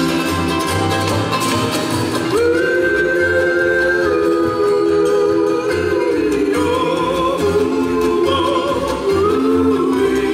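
Live bluegrass band playing: upright bass thumping a steady beat under strummed acoustic guitars, mandolin and fiddle, with voices holding long harmony notes from about two seconds in.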